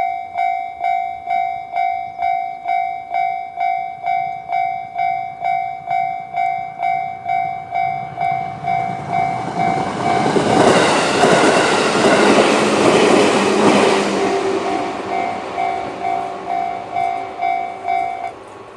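Japanese level-crossing warning bell, the JR standard electronic tone, dinging steadily at about two strikes a second. In the middle a JR 211-series electric train passes over the crossing for about four seconds with a rush of wheel and rail noise that drowns the bell. The bell then stops abruptly shortly before the end, the sign that the warning has ended after the train cleared.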